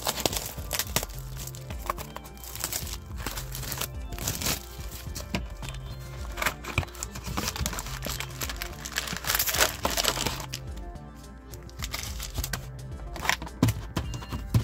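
Background music with a repeating low bass line, over the crinkling and crackling of plastic wrapping as a sealed trading-card booster box is unwrapped and its foil packs handled.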